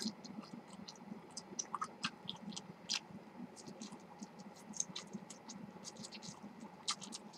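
Quiet chewing of a mouthful of rice, heard as many small scattered mouth clicks and smacks at an irregular pace.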